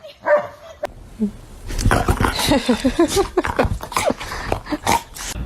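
Dog vocalizing in a rapid run of short pitched calls that starts about two seconds in. A brief knock comes near the start.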